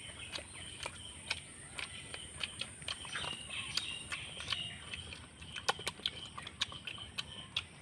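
Close-up eating sounds: irregular wet clicks and smacks of a person chewing chicken, several a second.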